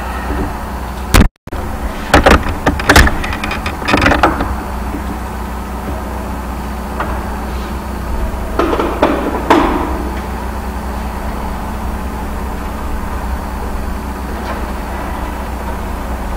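Steady low hum with a cluster of sharp knocks and clicks about two to four seconds in and a few more about nine seconds in; the sound cuts out completely for a moment just over a second in.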